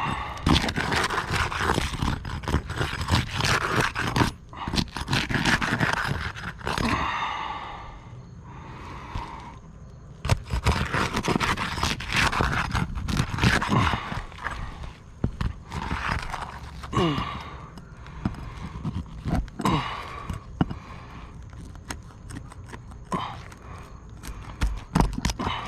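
Asphalt roof shingles being pried and worked loose: irregular scraping, crunching and knocking, with footsteps on the roof.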